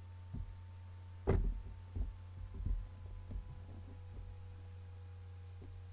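A cardboard product box being handled and opened: a string of soft, low knocks and thumps, the loudest about a second in, over a steady electrical hum.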